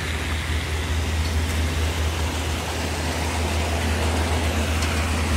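Muddy wash water gushing steadily from a discharge pipe into a steel trough, over the constant low hum of an engine running.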